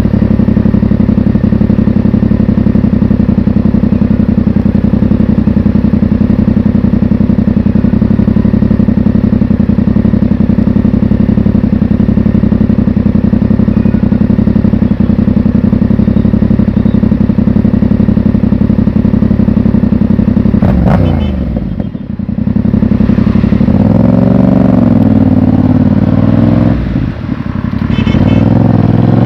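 Yamaha MT-07's parallel-twin engine running at a steady cruise, then the revs fall about twenty seconds in. It pulls again with rising revs, broken by a short dip for an upshift near the end.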